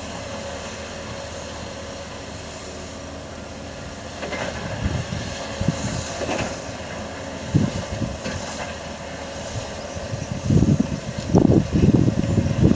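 Heavy diesel earthmoving machinery running at a distance, a steady drone. From about four seconds in, gusts of wind buffet the microphone, growing strong near the end.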